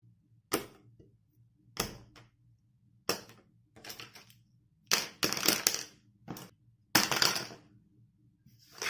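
Plastic pens tossed one after another onto a hard desk top, each landing with a short clatter. There are about eight, with several landing in quick succession around the middle.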